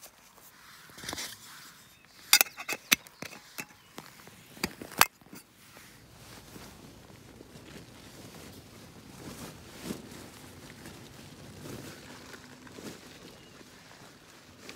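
A quick series of sharp clicks and knocks between about two and five seconds in, then the steady rustle of a down quilt being stuffed and handled.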